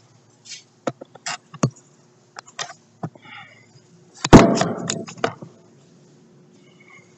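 Scattered clicks and knocks of hand tools and metal parts being handled while fitting intercooler pipes on an excavator engine, with one loud clanking impact about four seconds in that rattles on for about a second.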